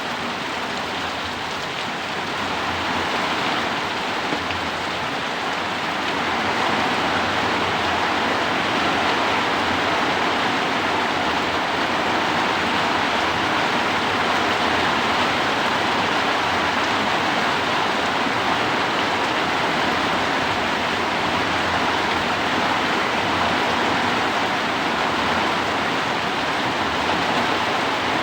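Heavy rain pouring steadily, driven by strong wind, an even hiss with no breaks. It grows a little louder about six seconds in.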